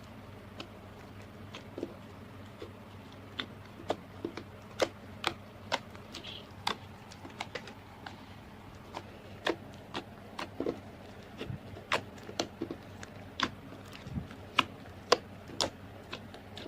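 Hands working slime with mixed-in items, giving irregular sharp clicks and pops, about two a second and unevenly spaced.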